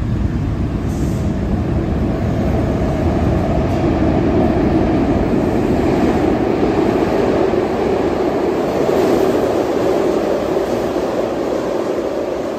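SEPTA Market-Frankford Line subway train running through the tunnel station: a loud, steady rumble of steel wheels on rail, swelling slightly midway.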